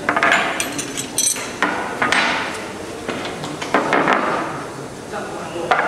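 Steel spanners clinking and clattering as they are set down one after another on a workbench: a series of sharp metallic knocks with short ringing.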